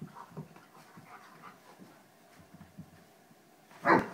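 A small puppy and a large 80-pound dog wrestling in play: soft panting and scuffling, then a loud vocal outburst from one of the dogs near the end.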